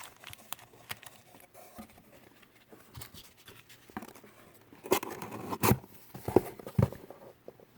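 Card packs and paper being handled: scattered light taps, clicks and rustling, busier about five to seven seconds in.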